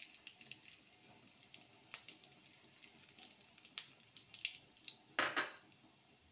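Cumin seeds crackling in hot refined oil in a kadhai, with many scattered sharp pops over a faint sizzle as the seeds start to splutter. About five seconds in there is a louder short clatter.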